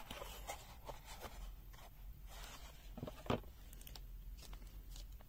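Unboxing handling noise: a cardboard box being handled and a multimeter's plastic wrapping rustling, with small scrapes and clicks and one sharper knock a little past three seconds in.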